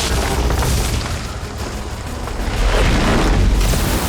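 Thunder booming in a lightning storm, with a deep rumble that swells loudest about two and a half seconds in, under dramatic film music.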